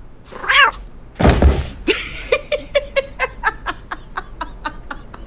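A short rising-and-falling vocal cry and a loud rush of breath, then rhythmic laughter, about four or five pulses a second, that fades away.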